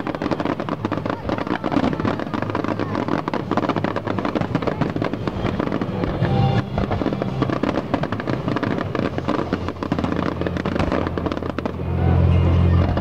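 Fireworks display: a continuous barrage of crackling and popping shell bursts, played over a music soundtrack, growing louder near the end.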